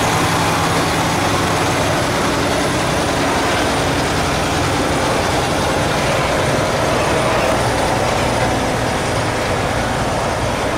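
Heavy tractor-trailer hauling a subway car on a multi-axle lowboy trailer rolling past: diesel engine running under a steady wash of tyre and road noise, with a thin steady high whine above it.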